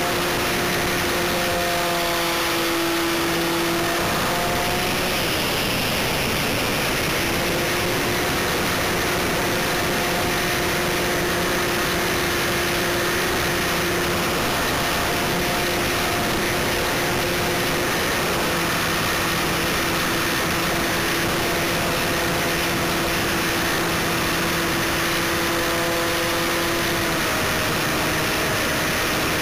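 Onboard sound of a GWS Stearman RC model biplane in flight: its motor and propeller give a steady whine under heavy wind rush on the camera's microphone. The whine dips in pitch briefly about five seconds in and again near the end.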